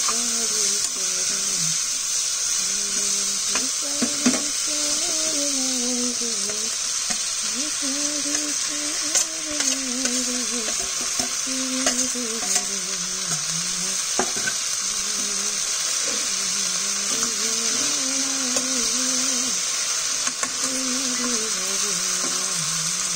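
Chopped okra frying in a steel pan, sizzling steadily while a spatula stirs it, with occasional sharp clicks of the spatula against the pan. A faint wavering tone runs underneath.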